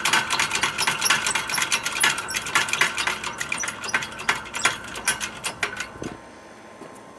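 Dense, irregular metallic clicking and rattling from a hydraulic shop press being worked to push a wheel bearing out of a steering knuckle, stopping about six seconds in.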